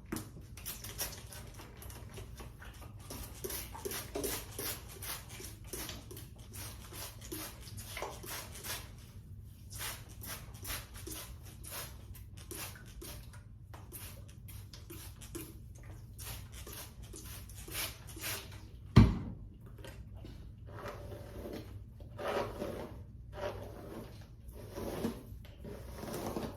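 Irregular rustling and light handling noises, with one sharp thump about two-thirds of the way through.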